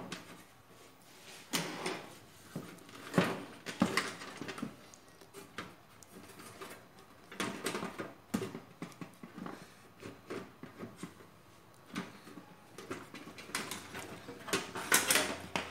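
Irregular clicks, taps and light scrapes of hands handling the sheet-metal motherboard plate and steel frame of an old AT computer case, in small clusters with short quiet gaps between, the busiest near the end.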